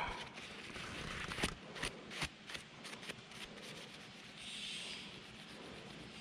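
A cloth rubbing and wiping over a plastic camera housing, with small clicks and rustles from the parts being handled, several sharp ones in the first few seconds. A softer wiping sound follows near the end.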